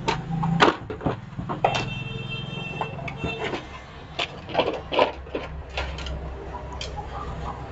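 Irregular clicks, knocks and rattles of a mixer grinder's motor and plastic body being worked loose by hand. A brief high-pitched tone sounds about two seconds in.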